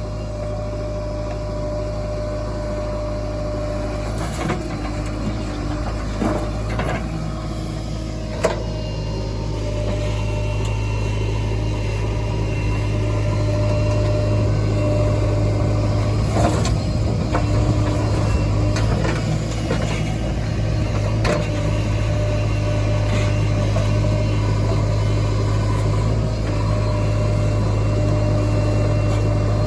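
Diesel engine of a backhoe loader running steadily while it digs and loads mud, growing louder about halfway through. Several sharp metallic clanks from the bucket and arm stand out above it.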